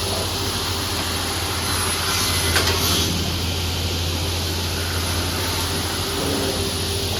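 TS-J39 automatic picture-frame cutting machine running with a steady hum. About two to three seconds in there is a brief, louder rush of noise.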